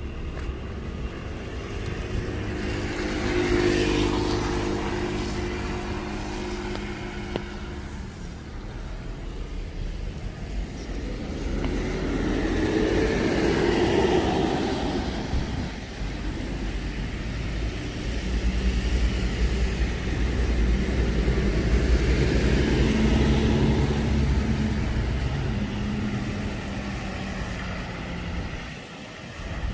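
Road traffic on a rain-wet street: several vehicles pass one after another, each engine swelling and fading, with a hiss of tyres on wet asphalt.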